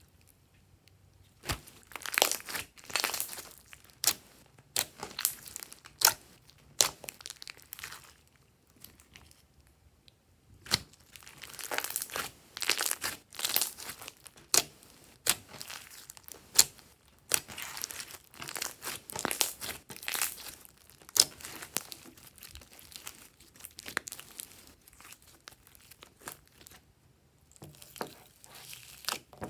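Glossy slime being kneaded and stretched by hand, giving clusters of sharp crackling clicks and pops, with a few short pauses between handfuls.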